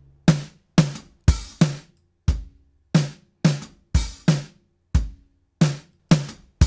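Drum kit track of kick and snare hits in a steady rhythm, played with a Waves H-Comp hybrid compressor switched in and out, so the hits change between compressed, punchier and uncompressed.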